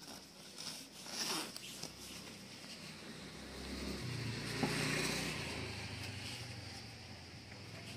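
Nylon puffer jacket and its zipper being handled and rustled, with a burst of rustling about a second in. A low hum swells up through the middle and fades away again.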